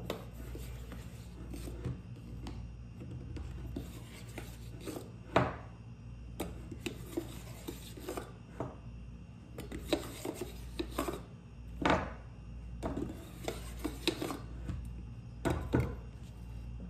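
A measuring cup scooping and scraping flour, with scattered knocks and taps of the cup against the container, the loudest about five seconds in, around twelve seconds, and twice close together near the end. A steady low hum runs underneath.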